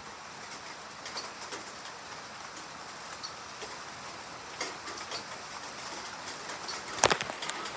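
Rain beginning to fall: a steady hiss with scattered ticks of single drops, and one loud sharp tap about seven seconds in.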